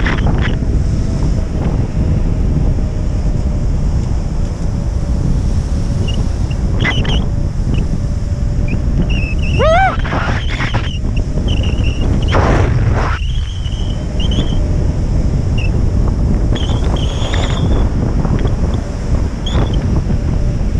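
Strong wind buffeting the camera's microphone with a steady low rumble, while a few short rising squeals come through about ten seconds in.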